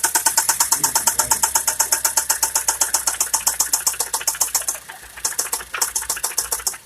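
2013 Ford Focus engine idling with a loud, rapid, even knock, about ten strikes a second: the sign of an internal engine failure. About five seconds in, the knocking turns weaker and uneven, and the engine runs rough.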